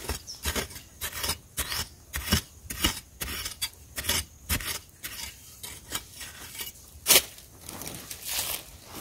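A long-handled digging tool with a metal blade jabbed repeatedly into dry, loose soil, about three short scraping crunches a second. The strokes thin out after about five seconds, with one sharper strike about seven seconds in and a brief rough scraping of earth near the end.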